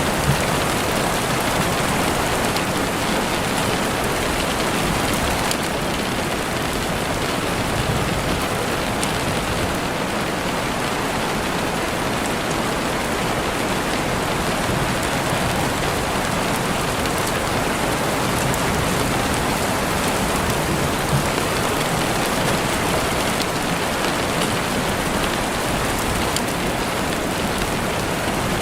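Steady rain falling on leaves and ground, with faint scattered clicks of a campfire crackling beneath it.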